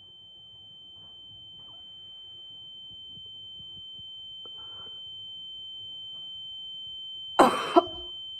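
A steady high-pitched ringing tone holds over a faint low rumble that slowly swells. About seven and a half seconds in, a sudden loud burst cuts in, followed quickly by a second short hit.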